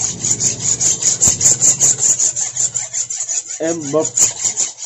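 Hand filing: a file rasping over a workpiece in quick, even strokes, about six a second.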